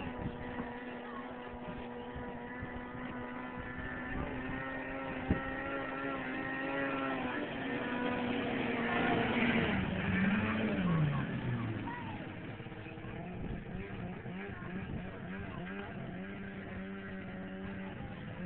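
Snowmobile engine held at steady high revs, growing louder toward the middle; about ten seconds in the pitch drops sharply as it comes off the throttle, and it then runs on steady at lower revs.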